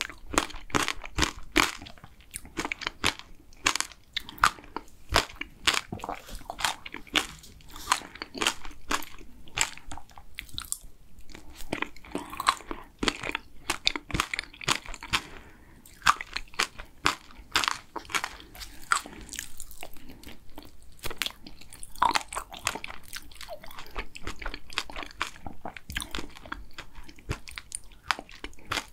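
Close-miked eating of mint chocolate ice cream with chocolate pieces: many sharp, irregular crunches and bites with wet chewing in between.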